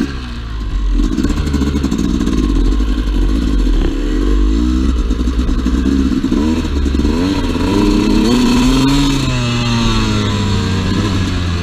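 Two-stroke dirt bike engine running under load on a trail, its pitch rising and falling as the throttle is worked, with a clear rev up and back down near the end.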